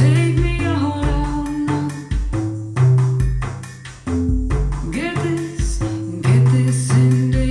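Instrumental music with a deep bass line and percussion, played back through Polk Audio Reserve R200 bookshelf speakers.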